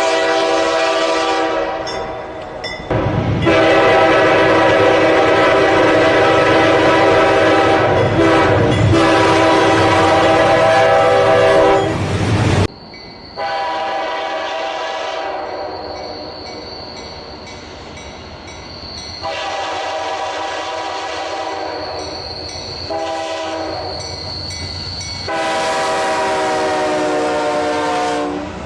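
Train horn sounding a chord of several notes in a series of about six long blasts. The longest blast, nearly ten seconds, comes in the first half over a low rumble.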